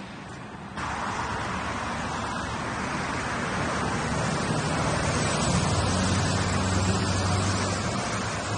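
Road traffic noise: a steady rush, with a low engine hum coming in during the second half and growing louder toward the end.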